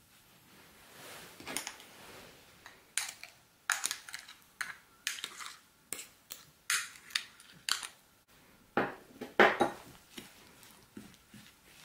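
Hands working crumbly pastry dough in a ceramic bowl: a run of short scrapes and knocks against the bowl, loudest near the end as the egg yolk is mixed in.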